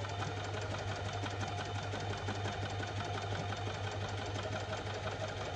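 Electric sewing machine running steadily as it stitches a seam, a constant motor hum with the rapid ticking of the needle.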